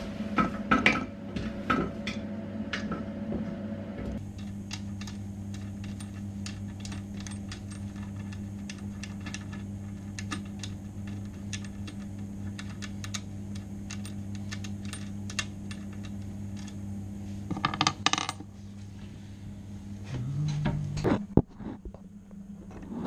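Quick small metallic clicks and clinks of a close-coupling bolt and nut being worked loose under a toilet cistern, over a steady low hum, with a louder clatter about eighteen seconds in.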